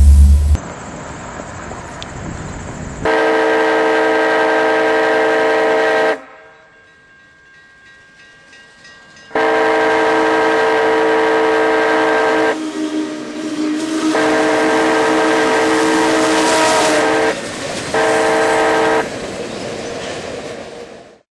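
Union Pacific steam locomotive's whistle blowing a chord: three long blasts of about three seconds each and a short one near the end, with the train sounding quieter between them. A heavy low rumble is heard for the first half-second.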